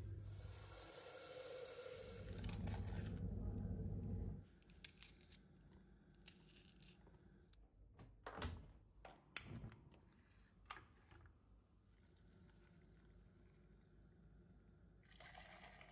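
Quiet household handling sounds: a low hum with rustling for about the first four seconds, then a few sharp clicks and knocks around the middle as a front-loading washing machine door is handled, and milk pouring into a bowl of cornflakes near the end.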